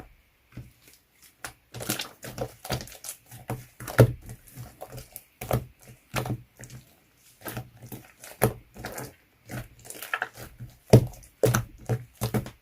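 Slime being squished and pressed by hand, giving a string of irregular sticky clicks and small pops.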